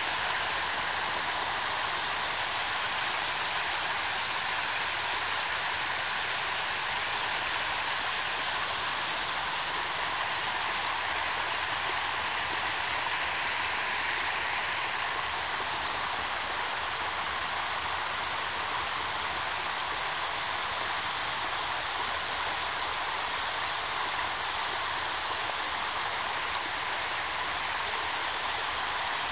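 Creek floodwater running over a low-water road crossing and spilling down a muddy bank in a small cascade, a steady, even rush and splash. The creek is still overtopping the road after heavy rain.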